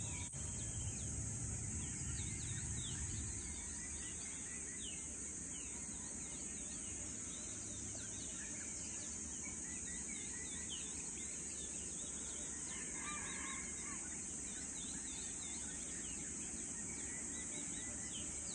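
Early-morning outdoor ambience: many birds chirping and calling over a steady high-pitched hiss, with a low rumble that eases about three seconds in.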